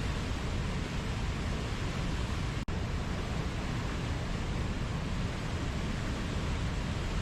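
Waterfall: a steady rush of falling water, with a momentary dropout about two and a half seconds in.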